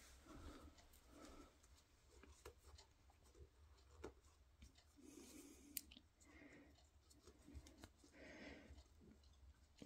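Near silence: room tone with faint scattered rustles and small clicks, one sharper click a little under six seconds in.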